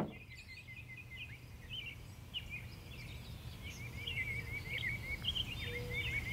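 Many small birds chirping and twittering in quick, overlapping calls over a steady low background rumble. A few short, lower notes join in near the end.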